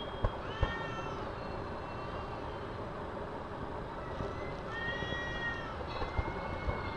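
Two cats yowling at each other in a fight standoff: three long, drawn-out wails, the middle one the longest. Two sharp knocks near the start, over a steady background rumble.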